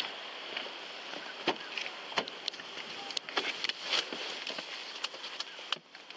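Someone getting into a patrol car: footsteps and the rattle of duty gear against a body-worn camera, then clicks and knocks from the driver's door and seat, over a steady outdoor hiss that drops away near the end.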